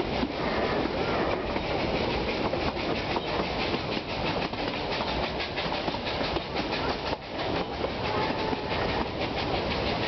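Narrow-gauge steam train carriage rolling along the track, heard from on board: steady running noise with wheels clicking over the rail joints.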